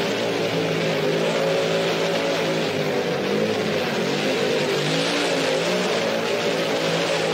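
Supercharged engine of a Dodge panel truck held at high revs through a burnout, its rear tyres spinning on the pavement: a steady engine note that wavers slightly in pitch over a continuous hiss of tyre noise.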